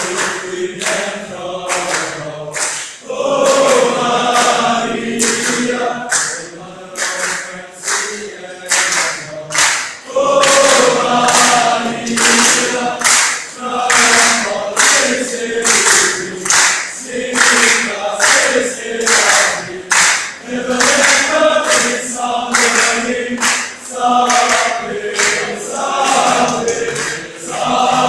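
Male choir singing together in several parts, with sharp strokes keeping a regular beat about twice a second.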